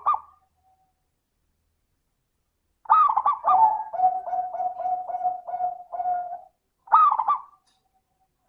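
Zebra dove (perkutut) singing. About three seconds in comes a loud opening note, followed by a run of about nine quick, even coos on one low pitch. Another opening note comes near the end.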